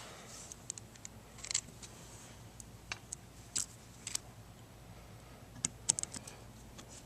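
Scattered light metallic clicks and taps of small brake parts being handled: a new brake hose, its sealing washer and fitting being put onto a disc brake caliper by hand. There are about a dozen short ticks in small clusters, the busiest near the end.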